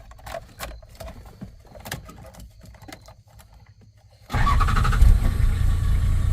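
A few light clicks and knocks of the key and cab controls, then about four seconds in the Land Cruiser's 2H six-cylinder diesel starts abruptly and keeps running steadily and loudly.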